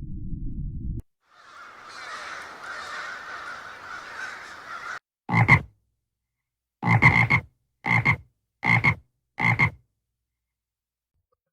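A low rumble stops abruptly about a second in. A soft hissing noise follows for about four seconds. Then come five short, loud animal calls, each under a second, the last four in quick succession.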